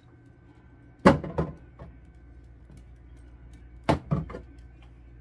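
Bottles and jars knocked and set down on a refrigerator's plastic door shelf: a double clunk about a second in and a quick run of three near the four-second mark.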